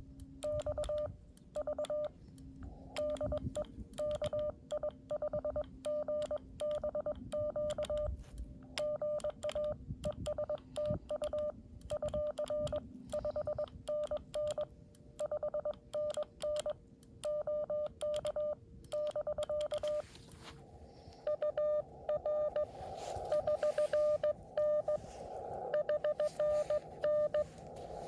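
Morse code (CW) from a Xiegu X6100 transceiver: a single mid-pitched tone keyed on and off in dots and dashes. About two-thirds of the way through, a band of receiver hiss comes up under the tones.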